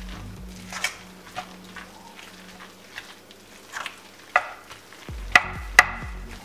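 A metal spoon stirring a thick, wet batter of grated zucchini, egg and flour in a stainless steel bowl: irregular scraping strokes, with sharp clinks of the spoon against the bowl, the loudest two close together near the end.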